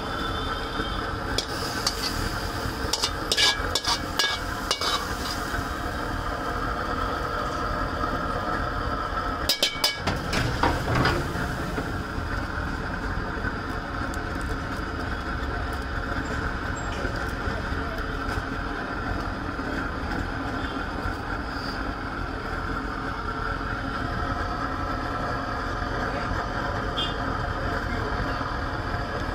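A metal ladle clinks against the wok and the aluminium foil tray as food is served. There is a cluster of clinks a few seconds in and another about ten seconds in, over a steady hum of street background.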